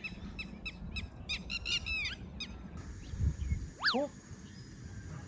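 A bird calling in a quick run of short chirps, a few a second. After a cut, a rope swing gives one squeak that falls steeply in pitch as it sways.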